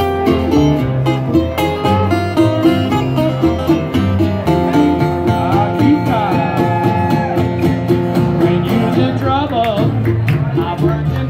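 Jug band playing an old-time tune live on acoustic guitar, upright bass and other plucked strings, with a man's voice singing over it from about halfway in.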